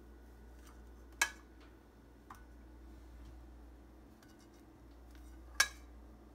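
Ceramic dinner plates clinking twice, once about a second in and again near the end, each a sharp knock with a brief ring, with a softer click between.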